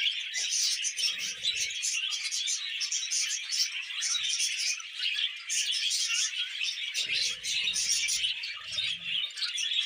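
Budgerigars warbling and chirping in a dense, unbroken, overlapping chatter.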